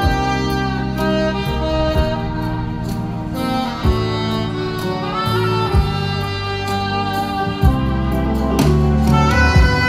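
Saxophone playing a slow melody over a backing track of strings and bass, with a soft drum hit about every two seconds.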